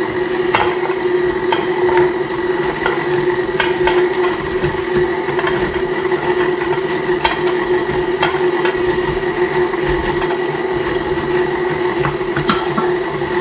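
KitchenAid Classic tilt-head stand mixer running steadily, its motor giving an even hum as the flat beater turns through stiff batter in the steel bowl. Irregular clicks and knocks come through the hum as chunks of chopped apple are tumbled into the batter.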